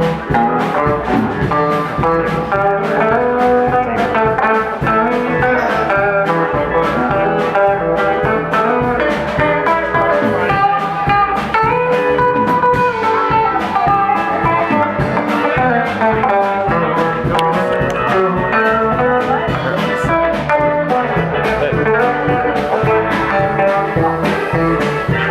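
Live band playing an instrumental passage: a guitar carries a bending, gliding lead line over bass and a steady drum beat.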